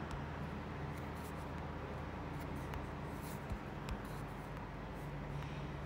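Quiet room tone with a steady low hum, broken by a few faint, short clicks and taps.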